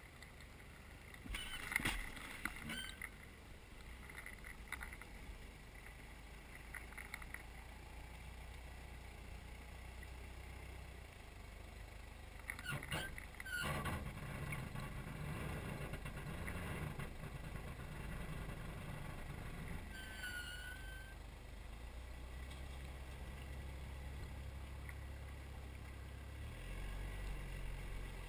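Engine of a lifted four-wheel-drive SUV on oversized tyres running low and steady as it crawls through a shallow stream. A few sharp knocks and splashes come about two seconds in and again near the middle. A short high tone comes about two-thirds of the way through.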